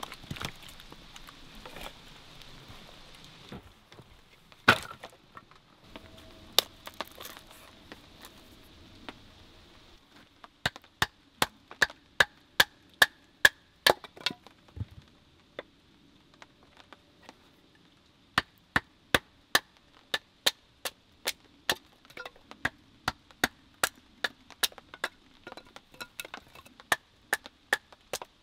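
Wooden baton knocking on the spine of a bushcraft knife to split kindling, sharp wooden knocks in quick runs of about two to three a second. Before that, a couple of single louder knocks.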